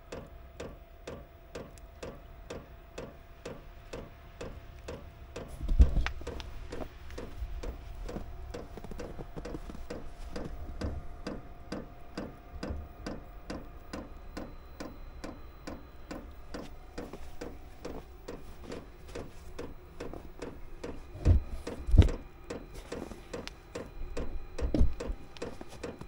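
Diesel air heater's fuel dosing pump ticking steadily, about two or three clicks a second, over a steady hum, as the heater goes through its startup cycle with glow plugs on and the burner trying to ignite. A few low thumps stand out, the loudest about six seconds in and twice near twenty-two seconds.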